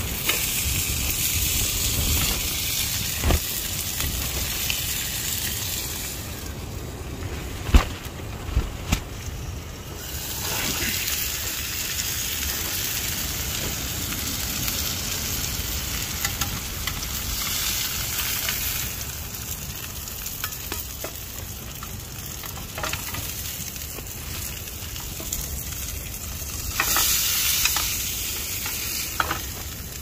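Venison burgers sizzling steadily in a hot ridged grill pan. Metal tongs give a few sharp clicks against the pan, around 8 to 9 seconds in and again near the end.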